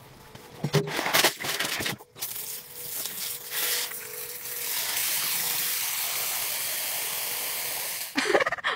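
Water from a garden hose running steadily into a metal basin of live crayfish, a broad even hiss, after a few clattering knocks in the first two seconds.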